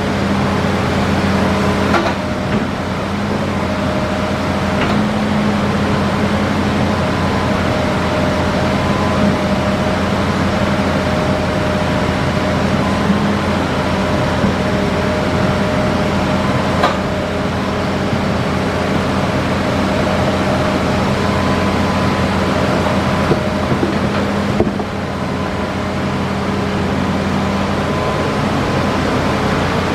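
Hitachi Zaxis 5G excavator running steadily under working load, a diesel drone with a thin hydraulic whine above it. A few sharp knocks come through, at about two seconds, five seconds and seventeen seconds in.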